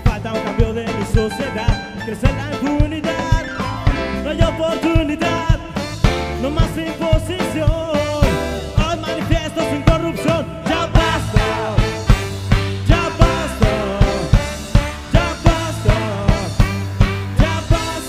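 Live reggae-ska band playing: a drum kit keeps an even beat under bass, keyboard, and a saxophone and trumpet.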